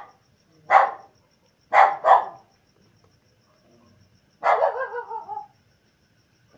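Dog barking: three sharp single barks in the first two and a half seconds, the last two close together, then a longer, wavering bark about four and a half seconds in.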